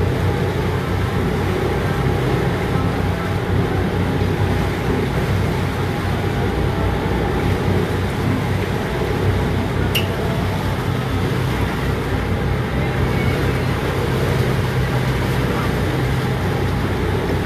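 Boat engine running at a steady speed, a constant low drone.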